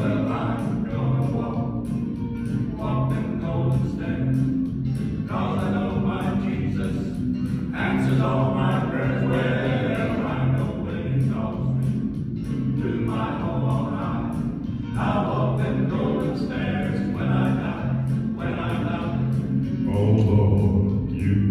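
Male gospel quartet singing over a steady instrumental bass line.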